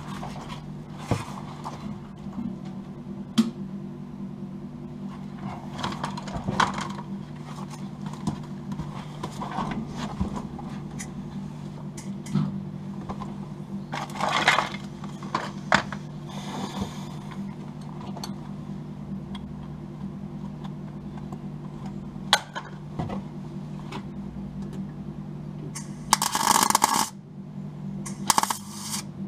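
A steady low hum with scattered clicks and knocks of handling, then near the end a MIG welder arcing in crackling bursts, first about a second long and then shorter, as it plug welds a wing lip to the inner wheel arch through a drilled hole.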